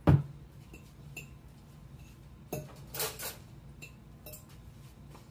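A utensil clinking and scraping in a bowl as chunks of chicken are broken apart, with one loud knock at the start and scattered light clicks after it.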